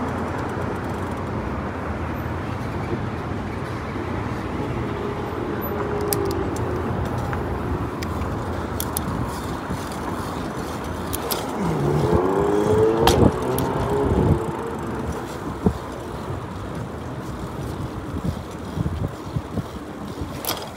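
Steady city street traffic noise heard from a bicycle riding along a sidewalk. A few sharp clicks come through, and a pitched sound bends up and down near the middle.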